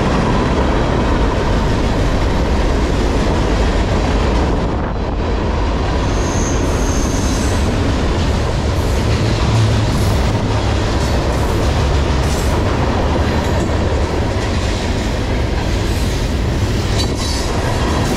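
Freight cars of a mixed manifest train (tank cars, boxcars, centerbeam lumber cars) rolling past close by: a loud, steady rumble of steel wheels on the rails with repeated sharp clacks, and a brief high wheel squeal about six seconds in.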